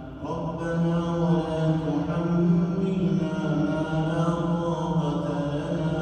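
A man reciting the Quran in the melodic tajwid style, drawing out long held notes that rise and fall slowly in pitch. He comes back in after a brief pause at the start.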